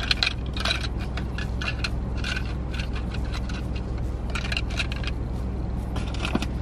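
Hands handling a small plastic case and packaging for Apple Watch bands: bursts of light clicking, rustling and scraping, over a steady low hum.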